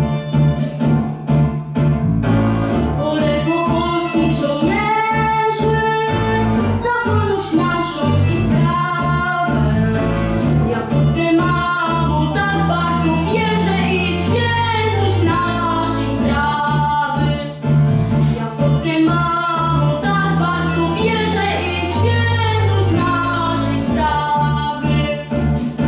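A boy's high voice singing a slow Polish song in a sustained, melodic line over instrumental accompaniment with bass and a steady beat.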